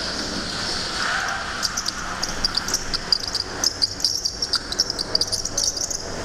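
Go-kart tyres chirping and squealing in quick, irregular high-pitched bursts as the kart slides through tight corners on the slick indoor floor, over the kart's steady running noise.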